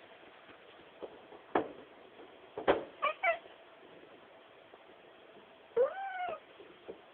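A house cat meowing: two short chirping mews about three seconds in, then one longer meow that rises and falls in pitch near the end. Two sharp knocks come just before the first mews.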